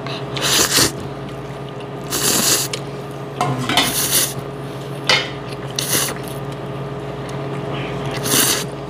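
Ramen noodles being slurped in repeated noisy pulls, about five slurps over several seconds, over a steady low hum.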